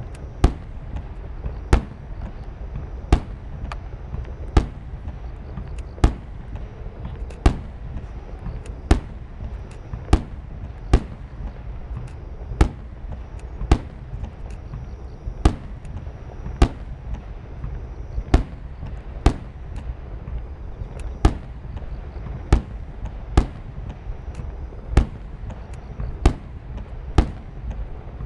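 Starmine barrage of large aerial firework shells: sharp booms about one a second, some coming in quick pairs, over a continuous low rumble.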